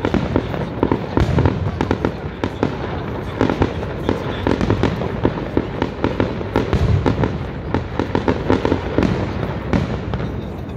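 Aerial fireworks display: a rapid, irregular string of shell bursts and crackling reports, several bangs a second without a pause.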